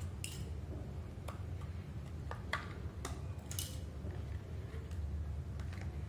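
Light plastic clicks and rubbing from a remote control in a silicone sleeve being handled: a handful of scattered clicks, mostly in the first four seconds, over a steady low hum.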